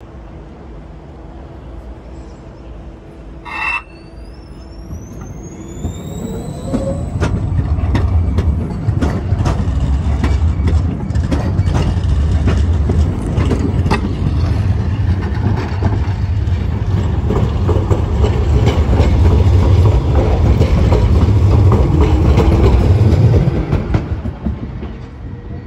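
Hyundai Rotem 140N low-floor tram pulling away from a stop. After a steady hum and a brief sharp sound about four seconds in, an electric whine rises in pitch as it accelerates, then a loud rumble of wheels on rails with many clicks as it passes close by, dropping off near the end as it moves away.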